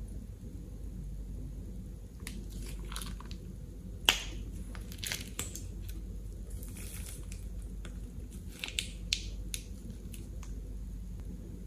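Plastic piping bag crinkling and squelching as thick orange slime liquid is squeezed out of it into a glass bowl, in scattered crackles with a sharp click about four seconds in.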